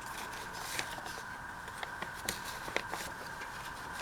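Paper being handled: soft rustles and a scattering of small clicks and taps as paper pieces are tucked into a handmade junk journal, over a steady faint background hum.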